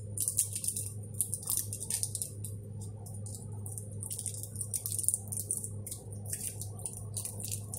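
Packaging crinkling and crackling in rapid, irregular bursts as hands open a small red box of saffron, over a steady low hum.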